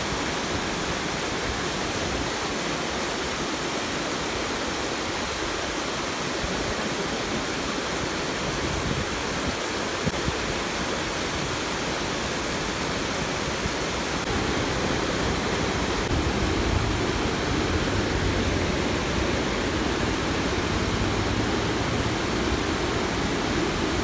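Rushing river water: a steady, even rush that grows a little louder about halfway through.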